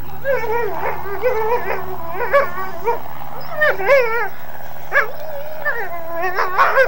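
A dog whining and yipping in a string of short, wavering, up-and-down calls.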